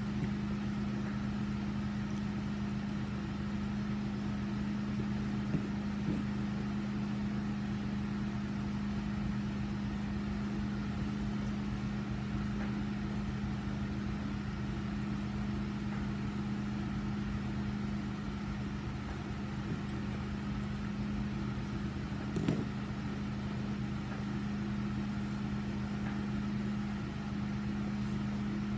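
Steady low mechanical hum of a running motor or appliance, holding one pitch throughout. A single brief clink sounds about three-quarters of the way through.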